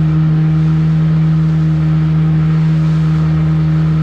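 Boat engine running at a steady speed, a loud, unchanging drone.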